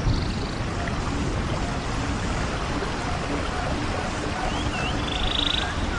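Nature-sounds ambience: running water like a babbling stream under birds chirping, with a short buzzy trill about five seconds in.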